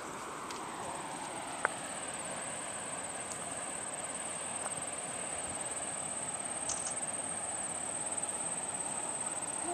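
Steady outdoor ambience: a continuous high insect buzz over an even rushing background noise, with one sharp click about a second and a half in.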